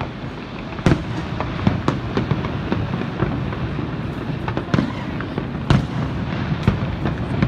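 Fireworks display: aerial shells bursting in about seven sharp bangs at irregular intervals, the loudest about a second in and near six seconds in, over a steady dense crackle.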